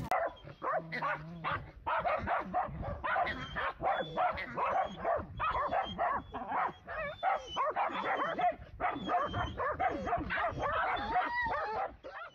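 Several dachshunds barking and yapping at a cat perched out of reach above them. The short barks and yips come in a rapid, overlapping, unbroken stream.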